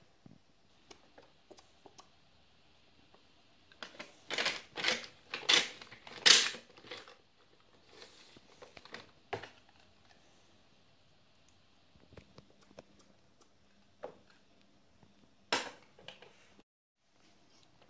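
Plastic toy makeup compact being handled and clicked shut: a cluster of clattering knocks about four to seven seconds in, a few lighter clicks after, and one more sharp clack near the end.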